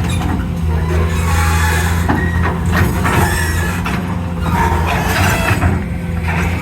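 Excavator engine running steadily, with irregular knocks and noisy bursts over it.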